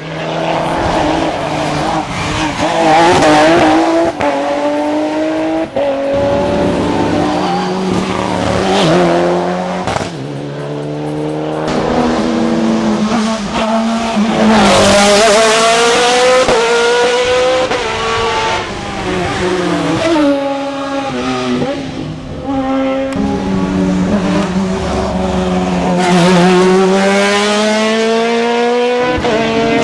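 Hill-climb race car engine revving hard, its pitch climbing and then dropping sharply again and again as it shifts gear and lifts off.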